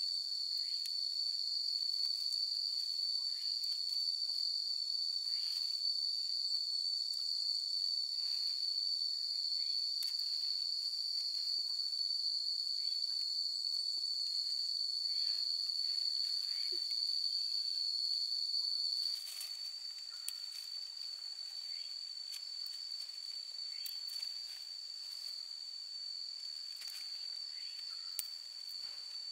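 Insects chirring in a steady high-pitched drone that drops a little in level about two-thirds of the way in, with faint scattered ticks and knocks.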